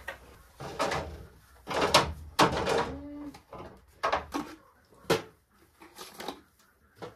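Handling noises in a goat pen: a run of knocks and rattles from the wooden pen gate and rustling in straw bedding, with plastic feeding bottles being handled, and a short faint goat bleat about three seconds in.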